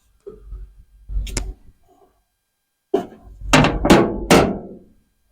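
Several hard knocks. There is one about a second in and another near three seconds, then three loud ones in quick succession, each with a short fading tail.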